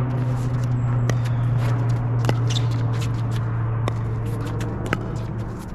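Pickleball paddles popping against the ball about once a second during a rally, with softer shoe scuffs. A steady low drone runs under it and stops near the end.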